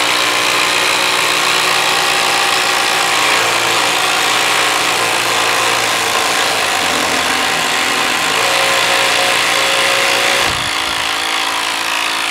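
Two cordless 12-volt impact drivers, one of them a Hilti brushless, hammering together under load as they race to drive fasteners into a wooden board. About ten seconds in the sound changes and drops slightly.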